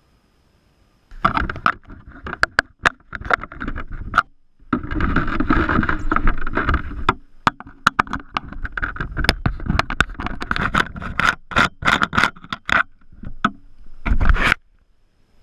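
Handling noise right at a camera mounted on a radio-controlled boat: rubbing and scraping against the hull and mount, with many sharp clicks and knocks. It starts about a second in and breaks off briefly near the end.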